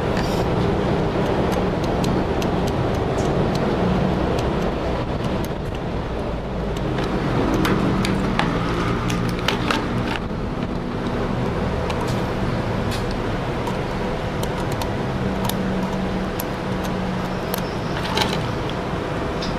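Steady background rumble of passing motor traffic, with scattered light clicks and taps as multimeter probe leads are handled against a motherboard, a cluster of them about halfway through and another near the end.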